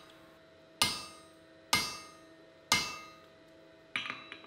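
Hand hammer striking a punch driven into red-hot iron on an anvil: three sharp metallic blows about a second apart, each leaving a short ring, then a few lighter, quicker clinks near the end. This is hot punching a hole from one side.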